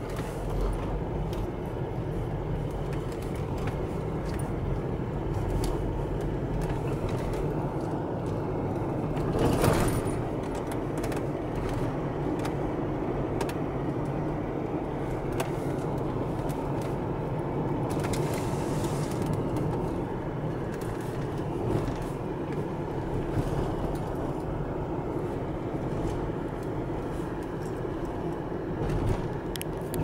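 Steady road and engine noise inside a car's cabin while driving on a paved road, with scattered small ticks and rattles. There is a brief louder swell about ten seconds in.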